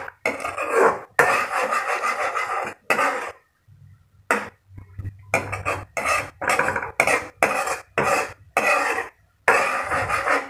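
Metal ladle scraping and stirring in a metal wok, a series of short scrapes with brief pauses between them, as a soy-and-sugar sauce simmers down to thicken.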